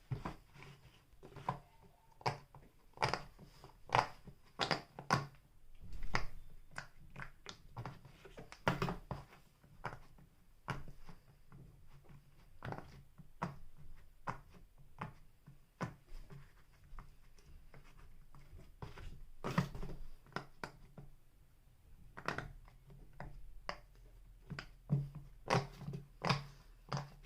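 Silicone pop-it fidget toy being pressed, its bubbles giving short soft pops at an irregular pace, a few a second, coming thicker near the end.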